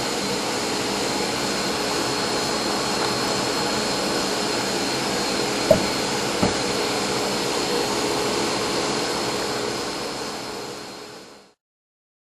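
Router on a router table running together with its dust-collection vacuum: a steady whining hum with hiss, broken by two short knocks about midway, fading out near the end.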